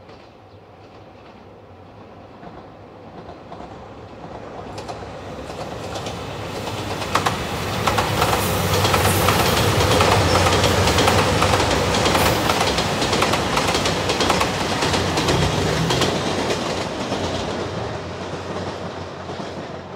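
JR Shikoku Nanpu diesel limited express train approaching, passing close by and fading away, its wheels clicking rapidly over the rail joints as it goes past.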